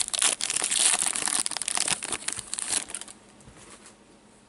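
Foil trading-card pack wrapper crinkling and tearing as it is pulled open, with the cards rustling. It dies down about three seconds in.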